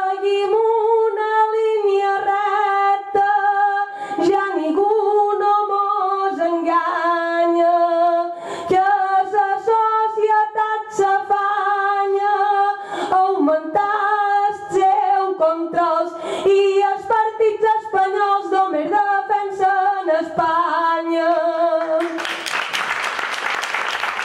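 A woman singing a Mallorcan glosa unaccompanied into a microphone, a slow sung verse of long held notes. Audience applause breaks in near the end as she finishes.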